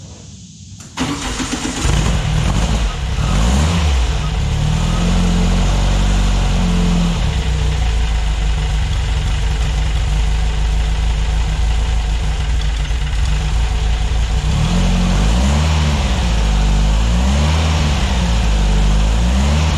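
Volkswagen 2332 air-cooled stroker engine with dual Weber IDF 44 carburettors starting up about a second in, then running. Its speed rises and falls, and near the end it is blipped several times in quick succession at the throttle linkage.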